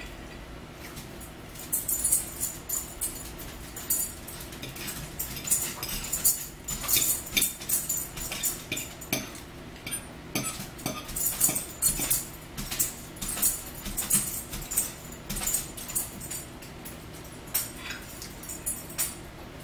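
Close-up eating sounds: many short, irregular clicks of chewing and lip-smacking on spaghetti and meatballs, with forks tapping and scraping the plates.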